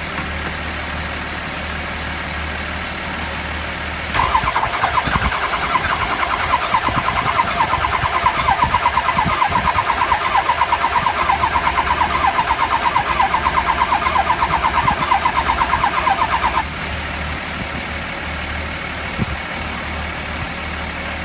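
Starter cranking a 2003 Ford 6.0 L Power Stroke diesel: a rhythmic chugging at about six pulses a second that begins about four seconds in and runs for about twelve seconds. It then stops without the engine catching, a no-start even with the high-pressure oil pump replaced.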